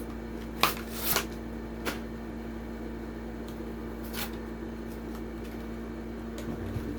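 Toy car packaging being handled and pried open: a few short crinkles and scrapes of plastic and card, the loudest about a second in, over a steady low hum.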